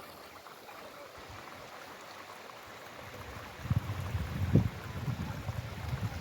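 Steady hiss of falling rain. From about three and a half seconds in, a louder, uneven low rumble with a few knocks joins it.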